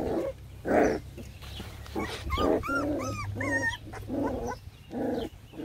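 Puppies whining and yipping: a string of about eight short, high calls, several arching up and down in pitch, most of them in the middle stretch, over a low rumble.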